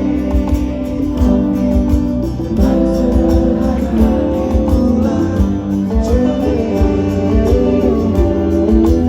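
Live band music with guitar to the fore.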